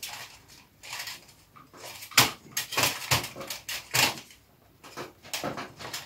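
Irregular clicks, knocks and rustles of hands working the wires and connectors inside a fluorescent light fitting being rewired.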